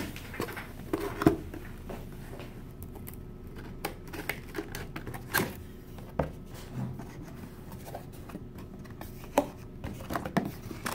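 Hands handling and opening a cardboard product box: scattered light taps, knocks and scrapes of fingers and flaps on the cardboard at irregular moments, the sharpest about a second in.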